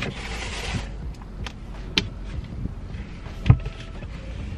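A plastic steering-wheel tray table being handled and fitted in a car: a short rustle, then a few light clicks and knocks and one louder thump about three and a half seconds in.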